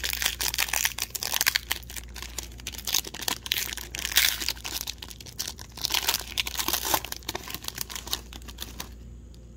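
Foil wrapper of a Parkhurst hockey card pack being torn open and crinkled by hand: a dense run of crackling and tearing that stops about a second before the end.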